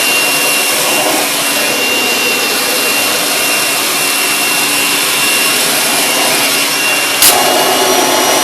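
Kirby Sentria 2 upright vacuum running steadily over carpet, a thin steady whistle above the motor noise, with a single sharp click about seven seconds in.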